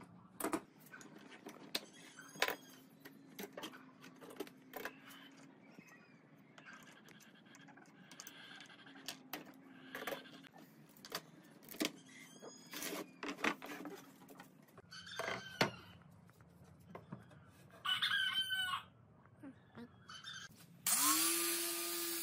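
Metal bar clamps and F-clamps being unscrewed and taken off a bent plywood arch, with irregular clicks, clacks and knocks of metal and wood. A rooster crows a few seconds before the end. Near the end an angle grinder fitted with a sanding pad starts up with a rising whine and runs steadily.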